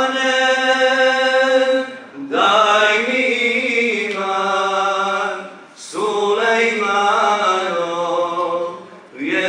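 Unaccompanied Islamic devotional chant sung in long held notes, in phrases of about three seconds with short breaks between them.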